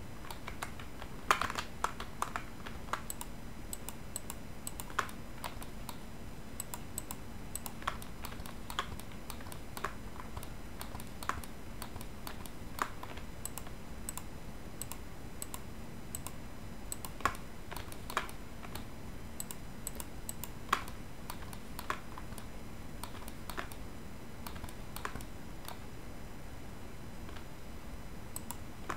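Computer keyboard keys clicking in irregular single taps and short runs, a cluster about a second in and then scattered presses, over a faint steady hum.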